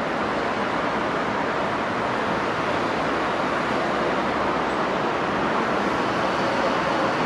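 Steady rushing noise of a station platform with a commuter train standing at it, no distinct knocks or announcements.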